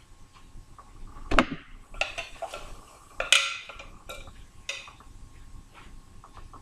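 Handling noises of a large makeup brush being worked in a jar of loose powder: a sharp knock about a second and a half in, then lighter clicks and a short hiss.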